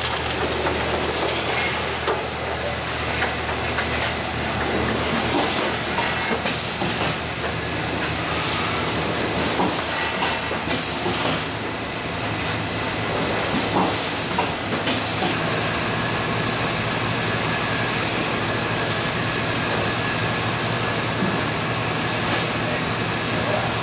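Tray former/loader and shrink-wrap packaging line running: a steady machine hum and hiss, with several short hissing bursts and clatter in the first half. A faint steady whine comes in about two-thirds of the way through.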